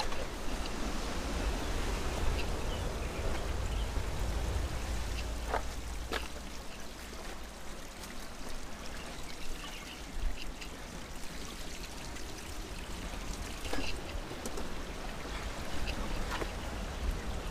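Footsteps and scrambling over loose rocks on a steep trail, with a few sharp clicks of stones, and the climber breathing hard from the effort.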